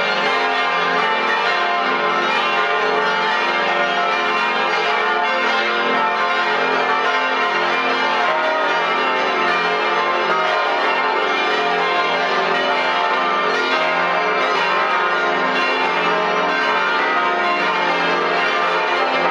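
A full peal of some twenty large church bells swinging and ringing together, heard close up inside the bell chamber: a dense, unbroken clangour of overlapping bell strikes at an even loudness.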